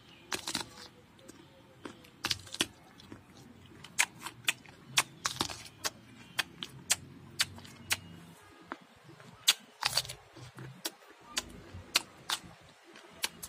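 Crisp, irregular crunches, about one or two a second, of someone biting into and chewing a firm green peach.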